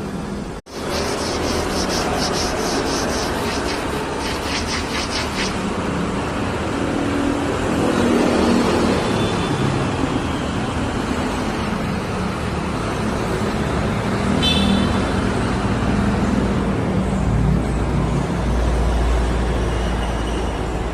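Road traffic going by, a continuous noise of passing vehicles with a deep rumble growing near the end, and a short horn toot about halfway through.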